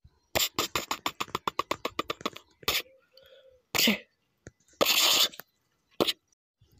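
A person making mouth sound effects: a rapid run of sharp clicks for about two seconds, then several short, separate hissing bursts.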